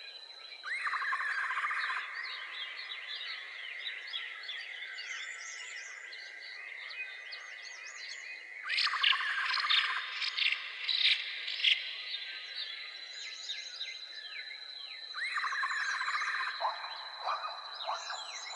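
Natural outdoor ambience: many short bird chirps and calls over a steady high insect drone. A louder trilling call comes three times, roughly seven seconds apart.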